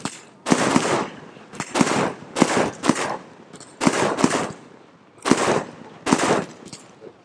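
CHRONOS 268-shot ready-to-shoot fireworks display firing: about ten sharp bangs from shells launching and bursting, at irregular intervals with some in quick pairs, each dying away briefly.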